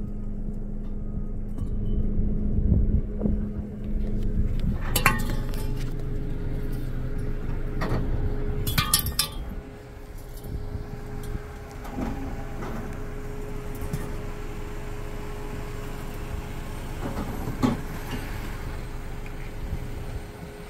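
A vehicle engine idling steadily, with metal clinks and clanks every few seconds as coils of razor wire and steel fence stakes are handled on a pickup's bed. The loudest clatters come about five seconds in and again around nine seconds.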